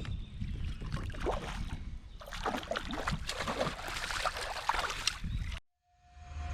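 Small water splashes and slaps against a kayak, with wind rumbling on the microphone; the sound cuts off abruptly about five and a half seconds in, and music starts at the very end.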